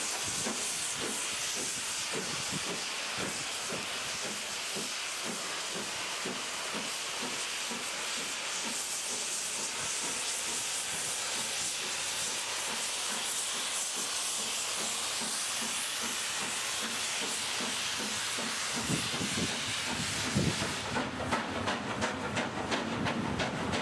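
LMS Princess Coronation Class Pacific 46233 Duchess of Sutherland, a four-cylinder steam locomotive, working a train past: a loud, steady steam hiss over a rapid beat of exhaust. In the last few seconds the coaches' wheels clatter over the rail joints.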